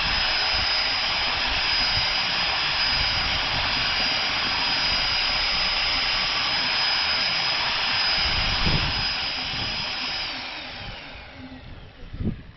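Electric drill fitted with a mixing paddle, running at a steady high whine as it stirs a bucket of mix. About ten seconds in it is released and spins down with a falling pitch, followed by a couple of knocks near the end.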